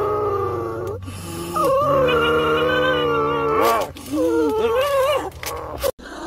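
A black-and-tan dog howling in three long drawn-out notes that slide up and down in pitch, the last one wavering.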